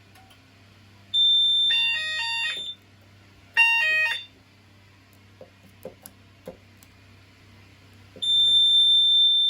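Hochiki fire alarm sounding on test: a loud, steady, high electronic tone comes on about a second in, overlapped by a quick run of stepped electronic tones. A second short burst of stepped tones follows, then a few faint clicks, and the steady high tone sounds again near the end.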